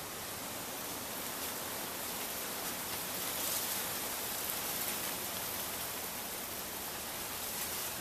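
1980 Casablanca Victorian ceiling fan running steadily, a rushing hiss of air from its spinning blades that swells slightly a few seconds in.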